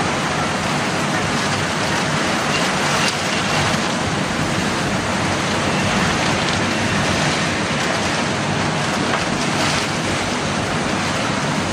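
Steady rushing noise of a winter storm squall: strong gusting wind with driving rain.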